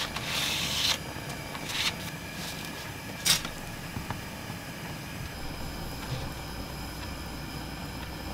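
Dry noodle packaging rustling twice, a sharp click about three seconds in, then a steady low hum.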